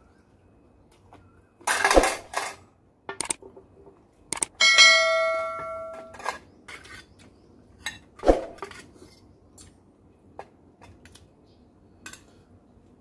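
Spoon and fork clattering and clinking against plates and bowls of food. About five seconds in, a dish struck by the cutlery rings clearly, fading over a second or so.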